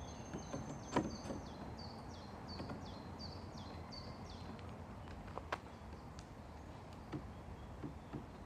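A few sharp knocks of a hammer and chisel on pallet wood, the loudest about a second in, with more near the end. Between them a songbird sings a run of about seven short, quickly repeated high notes.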